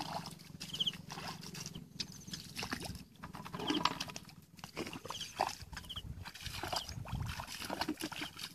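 Feet wading through shallow muddy paddy water: irregular splashing, sloshing and squelching of mud, with a few short high chirps now and then.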